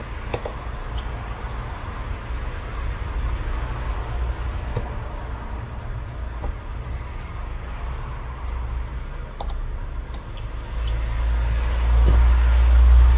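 Light scattered clicks and taps of small tools and fingertips on the phone's opened back as the shield and screws are pressed home, over a steady low rumble that swells near the end.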